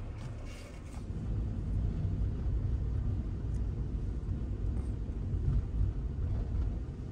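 Low engine and road rumble heard inside a van's cabin as it drives, growing louder about a second in.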